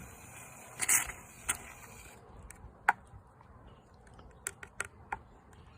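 Aerosol shaving cream can hissing as foam is sprayed out, with a louder spurt about a second in, stopping after about two seconds; then scattered clicks and taps of handling.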